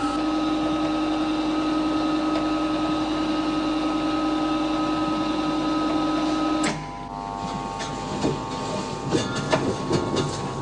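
Large vacuum casting chamber machinery running with a steady pitched hum while its lid closes. The hum cuts off abruptly about two-thirds of the way through, giving way to a quieter hum at a different pitch with scattered clicks.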